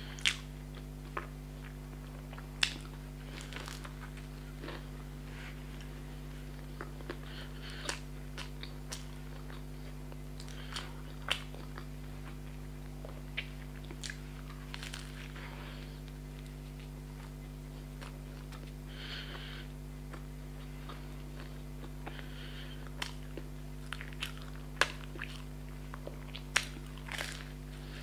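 Bites and chewing of a fried vegetable samosa: crisp crunches of the pastry and wet mouth sounds come at irregular moments, a few of them sharp and loud, over a steady low hum.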